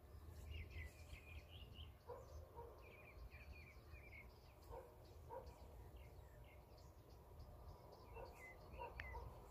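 Faint outdoor birdsong: small birds chirping and twittering on and off, with some lower, shorter call notes, over a steady low rumble.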